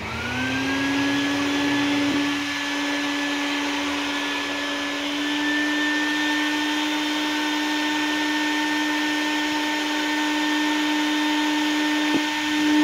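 Wet/dry shop vacuum switched on, its motor spinning up to a steady whine within about a second and then running steadily, drawing suction through its hose for a CNC vacuum hold-down table. A short click near the end.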